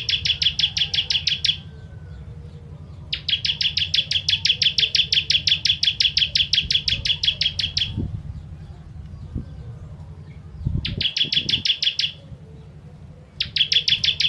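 Ciblek kristal (bar-winged prinia) singing its rapid-fire 'tembakan' trill of sharp, even notes, about eight a second, in bouts: one ending about a second and a half in, a long one of nearly five seconds, a short one after a pause, and another starting near the end. A steady low hum runs underneath, with a couple of soft thumps.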